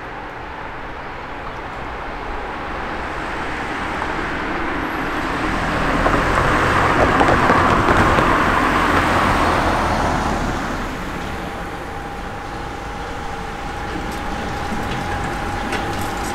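A car drives past, its tyre and engine noise swelling to a peak about halfway through and then fading. About eleven seconds in, a steady single-pitched warning tone from the half-barrier level crossing starts and holds, signalling that the barriers are about to close.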